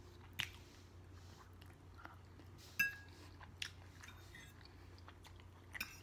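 Close-miked chewing of steak and vegetables, with a few sharp clicks of a metal fork against a plate; the loudest, about three seconds in, rings briefly.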